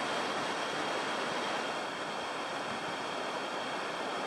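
Whitewater river rapid rushing steadily over rocks.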